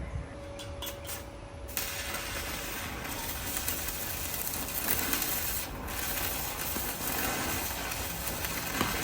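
Stick-welding arc crackling and sizzling as an electrode cuts through a metal bar. A few short sputters about a second in as the arc is struck, then a steady crackle from about two seconds on, with a brief break past the middle.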